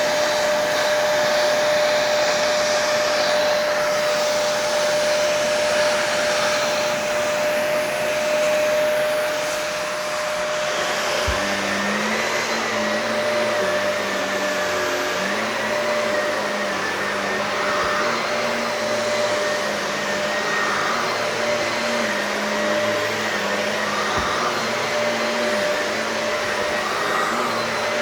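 Shark vacuum cleaner running steadily on carpet, a continuous motor and suction noise. About ten seconds in, the motor's pitch changes and a wavering low hum joins it.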